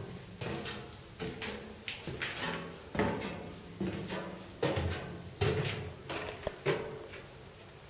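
Footsteps climbing stairs inside a tower stairwell: a steady series of heavy treads about every 0.8 seconds, each with a short echoing ring, stopping shortly before the end.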